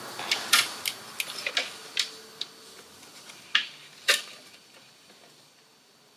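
Irregular small clicks and taps of plastic parts of a Maschine MK3 controller being handled and fitted together, about ten in the first four seconds, the loudest about four seconds in.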